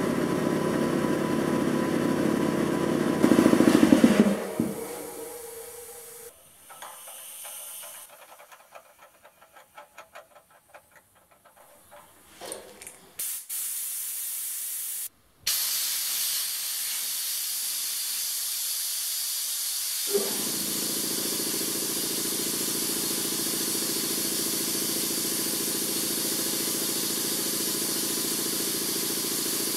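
Electric-motor-driven piston air compressor running, then stopping about four seconds in and leaving a faint ticking as it winds down. About fifteen seconds in, a steady loud hiss of escaping compressed air begins, and after a click near twenty seconds in a low hum runs under it.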